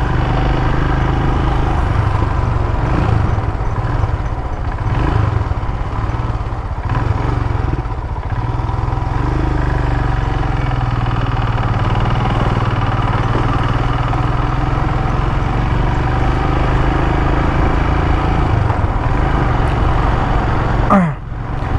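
Royal Enfield motorcycle engine running steadily while riding, picked up by a helmet-mounted microphone with wind rushing over it. The sound briefly sweeps and dips near the end.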